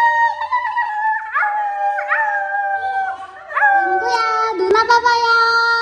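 People howling in imitation of dogs and foxes to draw the dogs' attention for a photo. It is a string of long howls, each rising quickly and then sliding slowly down, and a second, lower voice joins in over the last couple of seconds.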